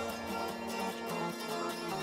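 Background music with held tones; its bass drops away about halfway through.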